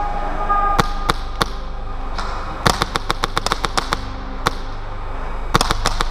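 Airsoft gun shots: three single shots about a second in, then a fast string of shots, one more single shot, and another fast string near the end.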